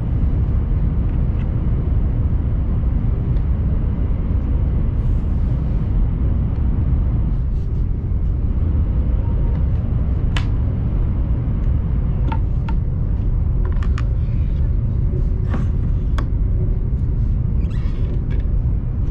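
Steady low rumble of a Chinese high-speed train's passenger cabin while the train runs. From about halfway through come several sharp clicks and knocks as a fold-out armrest tray table is pulled out and handled.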